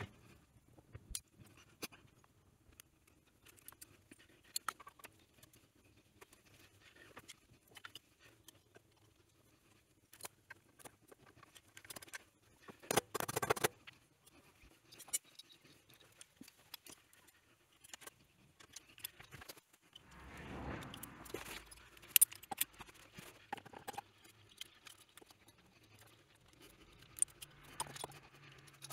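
Scattered light metallic clicks and taps with some rag rustling, as an engine cylinder barrel and cylinder head are handled and seated by hand. A louder scuffle of handling comes about halfway through, and a longer rustle a few seconds later.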